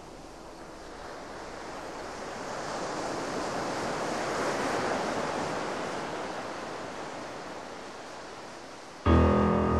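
A rushing, surf-like noise swells slowly to a peak about halfway through and fades away again. Near the end, music with piano and guitar starts abruptly and is louder than the noise.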